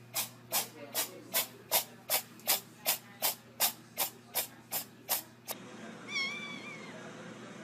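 A regular run of short, hissy noise strokes, about three a second, stops suddenly. About six seconds in, a domestic cat gives one short meow.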